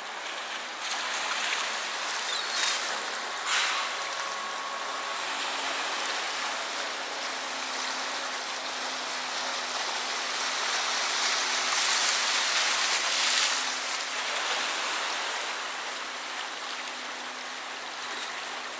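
Small sea waves washing onto a beach and against a rock breakwater. It is a steady hiss that swells louder for a couple of seconds about two-thirds of the way through.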